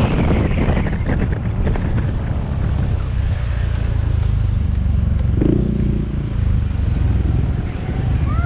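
Motorcycle running along the road, with heavy wind rumble on the microphone.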